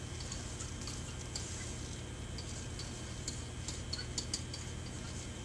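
Pen tapping and scratching on an interactive whiteboard while words are written, heard as light, irregular ticks over a steady low hum.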